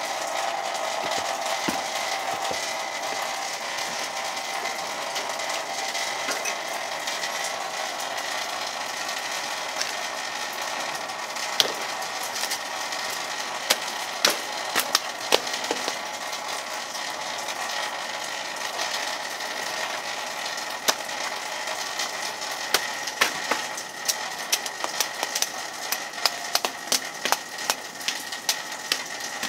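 Handmade cleaver, cut from a saw blade, chopping banana leaves and stalks. Sharp chopping strokes come a few at a time from about ten seconds in, then in a quick run over the last five seconds, over a steady hiss.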